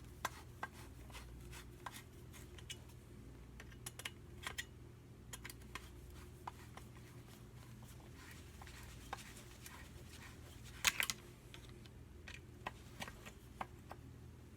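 Scattered light clicks and taps of a screwdriver and small engine parts being handled and fitted back onto a small two-stroke engine, with a louder clatter about eleven seconds in. A low steady hum runs underneath.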